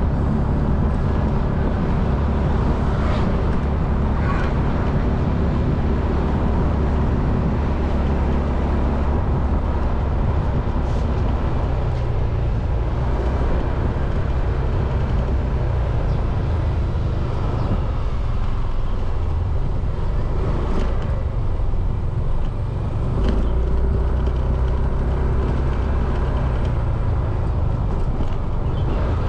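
Motorcycle engine running steadily while riding along a street, with a continuous low rumble. The engine note changes slightly about three-quarters of the way through.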